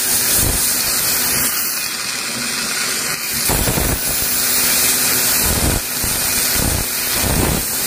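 Dental air-polishing handpiece hissing steadily as its jet of air, water and bioglass powder blasts stains off the teeth, with a few brief lower surges along the way.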